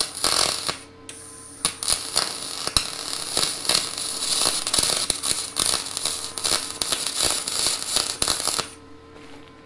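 MIG welding arc from a Lincoln 210 spool gun laying aluminum wire on aluminum tubing, crackling: a short burst, a brief pause, then a steady crackling bead of about seven seconds that stops suddenly near the end.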